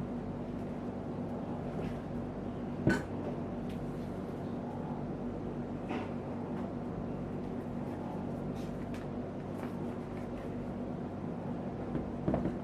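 Steady low hum with a few brief taps or knocks over it, the loudest about three seconds in and another pair near the end.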